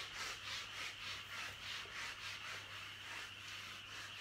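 Whiteboard eraser rubbing back and forth across a whiteboard, a rhythmic scrubbing of about four strokes a second.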